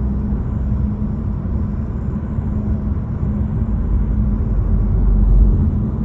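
Inside a 2024 Nissan Altima's cabin: steady engine and road rumble, with a low buzzing rattle from behind a pillar that comes and goes in short stretches. The buzz is the trim rattle that sets in when the engine reaches about 2,000 rpm.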